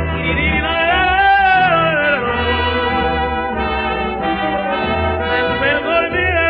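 Big-band jazz music, with brass (trumpets and trombones) playing a bending, sliding melody and no singing. The recording is old and dull-sounding, with no top end.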